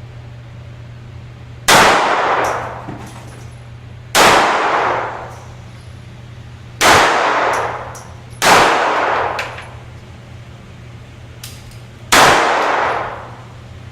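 Five gunshots fired at uneven intervals, each a sharp crack followed by about a second of ringing echo. A steady low hum runs between the shots.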